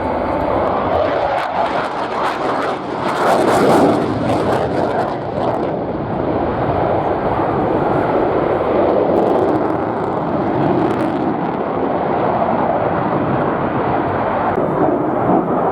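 Fighter jet flying past, its engine noise loud throughout, with sharp crackling strongest between about one and six seconds in.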